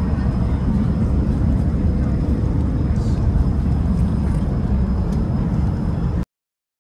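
High-speed ferry's engines running with a steady low drone, heard aboard. It cuts off suddenly about six seconds in.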